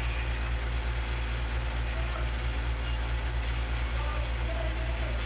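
Steady low hum that never changes in level, with faint voices in the background.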